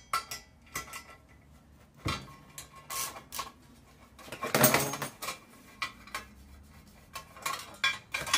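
Irregular metallic clicks and clinks of a wrench working a bolt and the thin sheet-metal cooling cover of a Predator 212 engine being worked loose, with a louder clatter a little before halfway.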